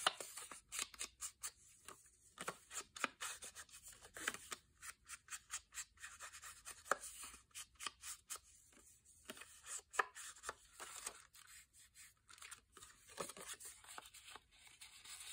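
Round ink blending tool scrubbed over the edges of a paper tag: a quiet run of short, irregular scratchy rubbing strokes, with some paper handling.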